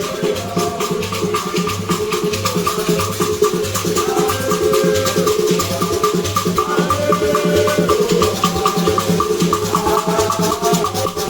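Background music with a steady beat: a bass pulse about twice a second, quick ticking percussion and a melody line.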